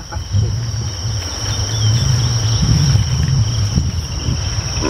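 Crickets and insects chirring steadily in the bush, with a deep low rumble that swells in the middle and fades near the end.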